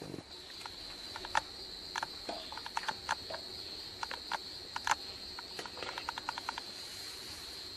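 Steady high chirring of crickets runs throughout, with irregular sharp clicks and taps of the plastic strainer and utensils against the aluminium pan while pineapple juice is poured through the strainer.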